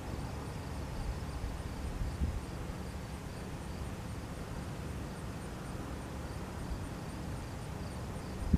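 Insects chirping in an even rhythm, about three chirps a second, over a steady low rumble from a Cessna 172N's four-cylinder engine idling as the plane rolls out along the runway after landing.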